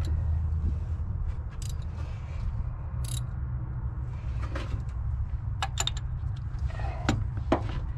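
Metal hand tools clinking and clicking while a spanner works on the thermostat housing bolts: about half a dozen sharp clinks scattered over several seconds, over a steady low rumble.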